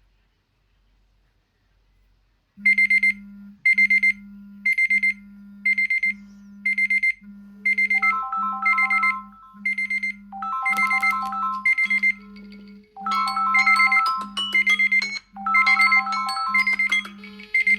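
Electronic phone ringtone that starts after about two and a half seconds of near silence: a high beep about once a second over a pulsing low tone, joined a few seconds later by a chiming melody that grows fuller.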